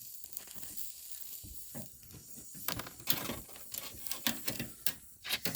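Stick welder's arc running a very thin electrode on a thin sheet-metal patch: an irregular crackle and hiss, with sharper pops crowding in over the second half.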